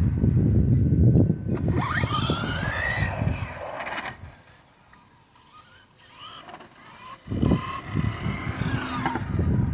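Electric motor of a Traxxas Slash 2WD RC drag truck whining up in pitch as the truck launches and accelerates, over a loud rush of noise. It dies away about four seconds in, and a second loud stretch starts about seven seconds in.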